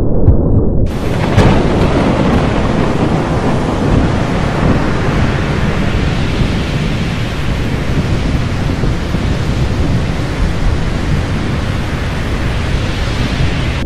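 Thunderstorm sound effect: a low rumble, joined about a second in by a steady, loud hiss of heavy rain over continuous rumbling thunder.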